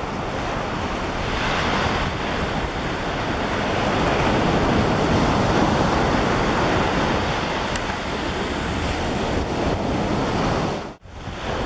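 Steady rush of surf with wind buffeting the microphone, cutting out briefly near the end.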